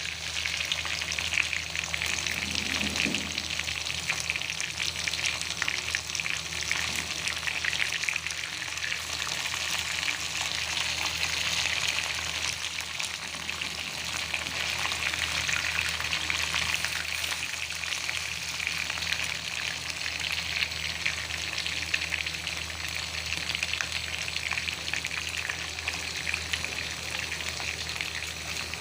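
Food frying in hot oil in a pan, a dense, continuous crackling sizzle with a steady low hum beneath it.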